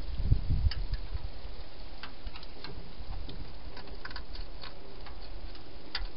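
A hedgehog eating from a bowl inside a plastic feeding box: irregular sharp clicks of chewing, a few a second, with some low thuds in the first second.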